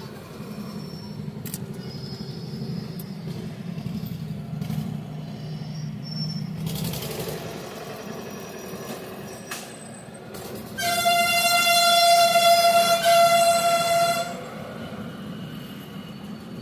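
A vehicle horn sounds one long, steady blast of about three and a half seconds, starting about eleven seconds in, over a low steady rumble of traffic.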